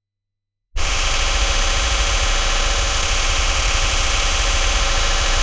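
Video glitch static noise effect: a loud, harsh hiss over a heavy low rumble, cutting in suddenly under a second in and holding steady.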